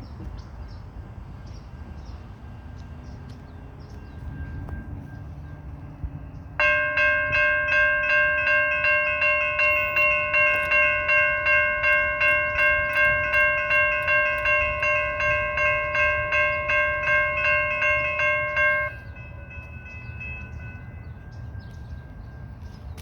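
Railroad crossing warning bell ringing at about two strikes a second, each strike fading before the next. It starts abruptly about a third of the way in and cuts off suddenly after about twelve seconds, over a low rumble of traffic and trolley.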